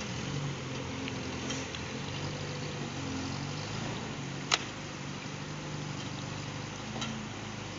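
Suzuki Vitara 4x4's engine running at low revs as it drives through a rocky river, over a steady rush of river water. A single sharp click a little past halfway.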